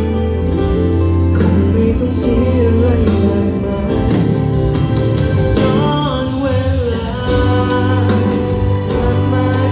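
A male singer performing a Thai pop ballad live with a band, over a steady bass line, heard through the arena's sound system from the audience.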